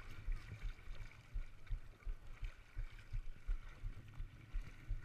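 Ocean water slapping and sloshing against a boogie board and the board-mounted camera, an irregular run of low thuds.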